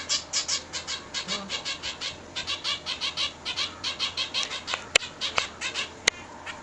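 A zebra finch fledgling calling in a fast run of short, harsh chirps, about four a second: the begging calls of a hungry young bird being hand-fed. Two sharp ticks sound near the end.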